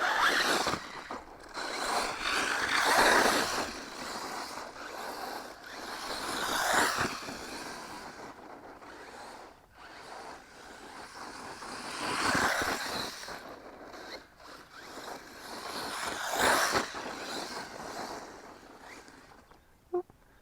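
JLB Racing Cheetah brushless-electric RC truck running on 2S lipo through grass, its motor and tyres swelling loud about five times as it speeds up and passes near, with a rushing, swishing noise.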